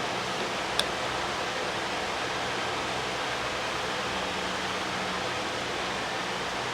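Steady rushing workshop noise with a faint low hum, and a single sharp click about a second in.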